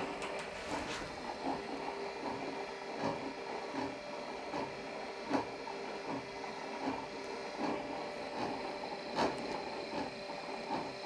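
Elektra LBO rotating warning beacons running together: their electric motors and rotating mirror drives whirr steadily, with a few held tones and irregular light ticks. They turn slowly because the supply voltage is low with three lamps connected.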